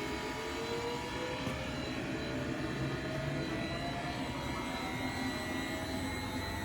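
Main drive motor of a large Poreba TPK110/6M engine lathe spinning up just after being switched on: a whine that rises in pitch over the first few seconds, then settles into a steady running hum.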